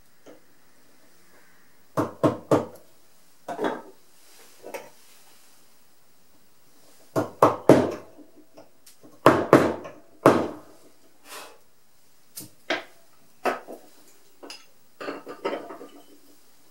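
Sharp wooden knocks in short irregular groups of two or three, separated by pauses: carving gouges and a wooden mallet at work cutting into hard zelkova (keyaki) wood.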